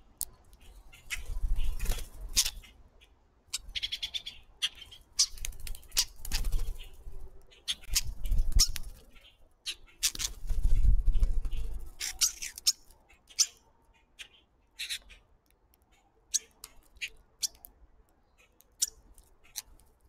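Flock of songbirds at a seed feeder: fluttering wings, sharp clicks and pecks, and short calls. The activity is busiest in the first twelve seconds or so, with bursts of low rumbling flutter, then thins to scattered clicks and calls.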